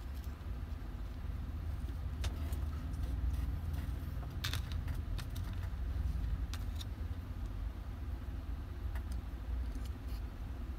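Scattered light clicks and clinks of small metal parts and tools being handled, a few at a time, over a steady low rumble.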